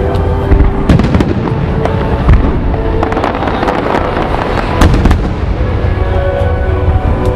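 Aerial fireworks bursting one after another: a dense string of booms and sharp cracking reports over a continuous low rumble, the loudest hits about a second in, near two and a half seconds and around five seconds. Music plays underneath.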